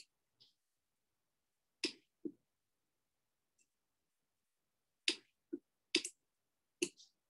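Computer mouse clicks: several sharp clicks, mostly in pairs, with silence between them.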